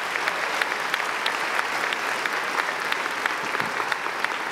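Large audience applauding, with dense, steady clapping.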